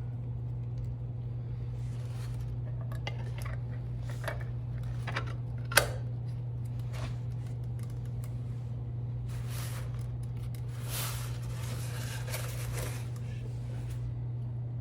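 Small parts and tools being handled over a steady low hum: scattered light clicks, one sharp click about six seconds in, and a stretch of rustling or scraping a little after halfway.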